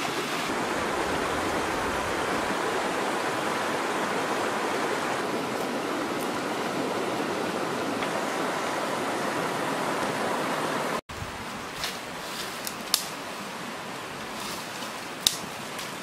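A river running over rocks, a steady rush of water. About eleven seconds in it cuts off abruptly to a quieter background with a few sharp snaps and rustles of dry sticks and leaf litter being handled.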